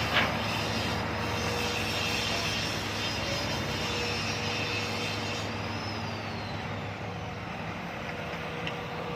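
Heavy diesel construction machinery running steadily, with a steady higher whine over the low engine hum and a brief sharp sound just after the start.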